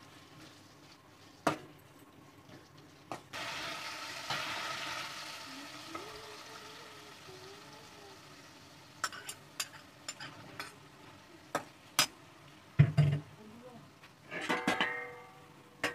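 Spiced tomato masala frying in a metal kadai. A burst of sizzling starts about three seconds in and slowly dies down as eggs go into the hot masala. Several sharp taps and clicks against the pan follow, with a louder scraping clatter near the end.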